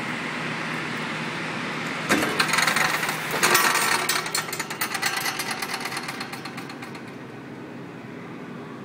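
An engine running with a steady hum; about two seconds in a fast, clattering rattle swells up, then fades away by about seven seconds in.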